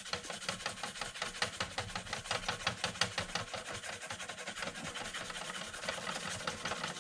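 Sandpaper rubbed in rapid, even back-and-forth strokes over the painted plastic body of a scale RC Jeep Cherokee, wearing through the paint at the door keyhole to bring up the grey underneath.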